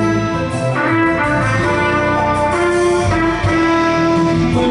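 Male singer singing into a handheld microphone over a guitar-led backing track played through speakers.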